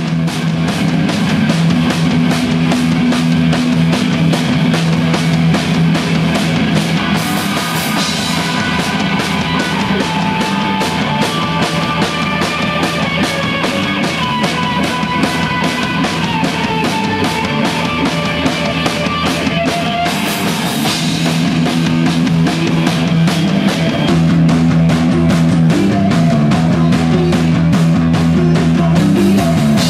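Live rock band playing loud: two drum kits keep a steady pounding beat under electric guitar and a held low bass note. Cymbal crashes ring out about a quarter of the way in and again about two-thirds through.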